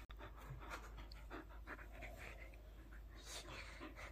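A Samoyed panting faintly with its mouth open.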